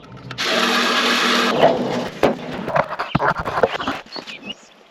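A harsh scraping noise for about a second, then a run of irregular knocks and clanks as parts of the portable sawmill are handled during setup. Birds chirp faintly near the end.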